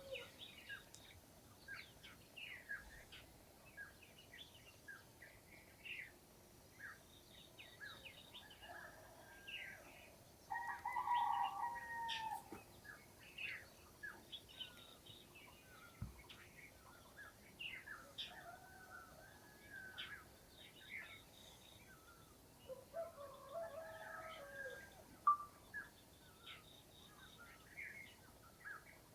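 Morning village birdsong: many small birds chirping in short notes throughout, with a rooster crowing once, loudest, about eleven seconds in, and a fainter crow-like call later on.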